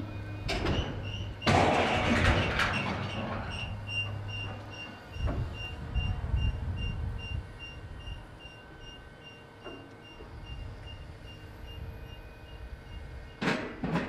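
Terex Fuchs MHL350E material handler: a steel dump-truck body is dropped from its grab and crashes onto the ground about one and a half seconds in. The machine's engine then runs on with its warning alarm beeping about twice a second, with another loud clatter near the end.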